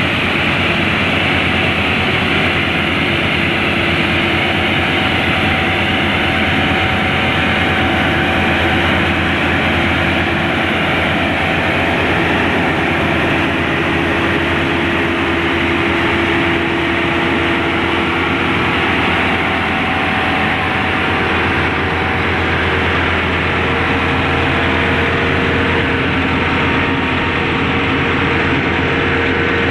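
Diesel road sweeper running steadily as it drives along, its engine drone mixed with the rotating side brushes working on the pavement.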